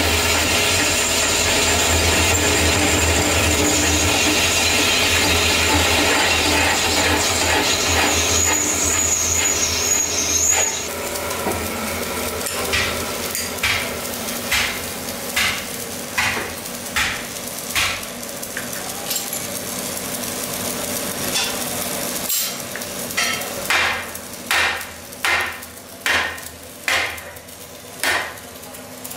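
Metal lathe running steadily while turning a steel truck rim, with a high cutting squeal; it stops about ten seconds in. Then a string of sharp hammer blows on the steel rim in the lathe chuck follows, roughly one a second, the later ones louder.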